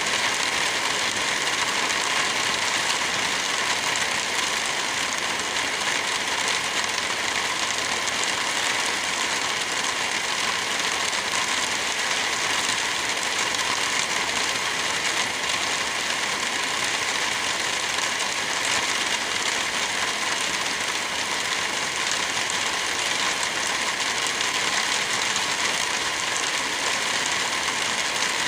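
Steady rain: an even, unbroken hiss that holds at one level throughout.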